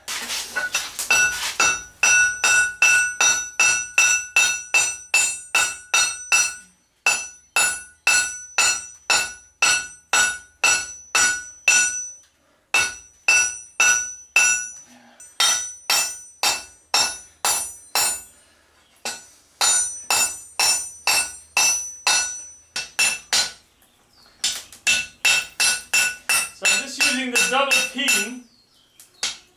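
Hand hammer striking a red-hot forge-welded steel billet on an anvil in steady, rapid blows, each with a bright metallic ring, broken by a few short pauses. The hot billet of bicycle lock and spoke steel is being flattened out.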